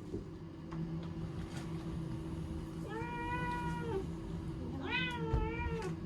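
A cat meowing twice: a long, level meow about three seconds in, then a second meow near the end that rises and falls with a waver, over a steady low hum.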